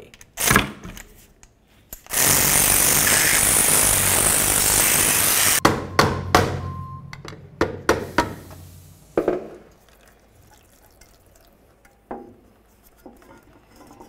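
A hand-held power ratchet runs for about four seconds, spinning out the steel differential cover bolts. Then come a string of sharp metal clicks and clanks as the bolts and tool are handled, and a few knocks near the end as the cover is worked loose.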